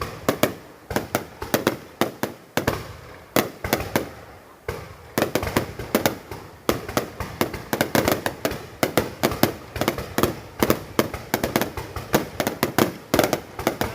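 Fireworks going off in quick succession: many sharp bangs, several a second at irregular spacing, coming thicker about halfway through and again near the end.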